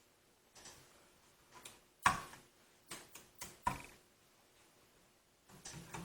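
A few light plastic clicks and taps as a DDR4 memory stick is lined up and pressed into a motherboard DIMM slot, its retention latches snapping closed; the sharpest click comes about two seconds in.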